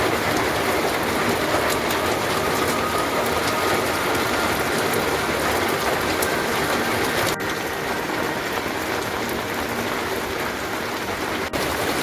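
Steady rain falling, an even hiss with no pauses, dropping slightly in level about seven seconds in.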